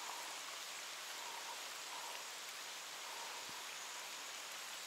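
Steady rain falling on open water, an even hiss.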